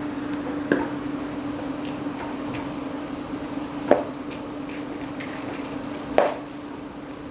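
Kitchenware clatter: three sharp knocks a few seconds apart and some faint ticks, over a steady low hum.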